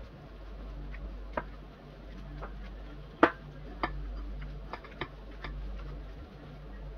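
Gloved hands kneading minced chicken kofta mixture in a glass bowl: irregular sharp clicks and taps, the loudest about three seconds in, over a low steady hum.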